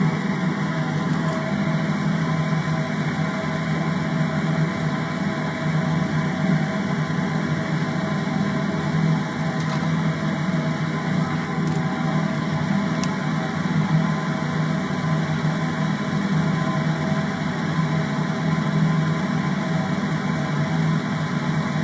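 Steady, unchanging hum of a small electric fan running, with a few faint ticks partway through.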